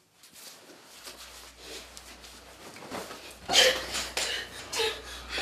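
Bedclothes rustling and short, sharp breathy gasps during a struggle on a bed; the loudest gasp comes about two-thirds of the way through, another near the end.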